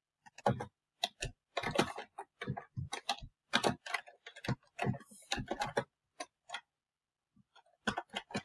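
Keystrokes on a computer keyboard: a quick, irregular run of clicks for about six seconds, a short pause, then a few more clicks near the end.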